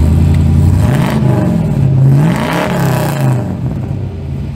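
A car engine revving, its pitch rising and falling about twice, then dropping off in loudness near the end.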